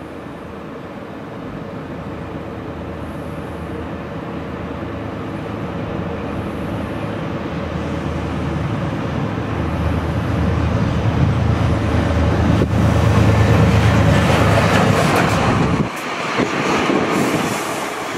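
Deutsche Bahn Class 362 diesel shunting locomotive running light, its diesel engine giving a steady low drone that grows louder as it approaches. The drone drops away suddenly near the end as the locomotive moves off.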